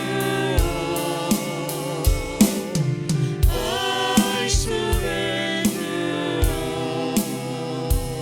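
Live gospel worship music: voices singing sustained notes over a band with a steady drum beat, about two beats a second.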